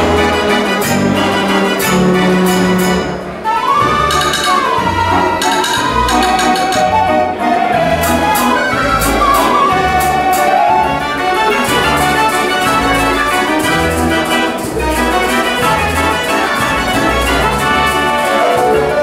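Book-played Dutch dance organ (dansorgel) playing a tune: a melody over a steady, regular bass beat, with percussion strikes throughout.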